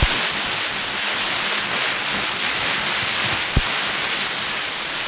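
Experimental turntable noise music: a dense, even hiss like heavy rain or surf, with a single low thump about three and a half seconds in.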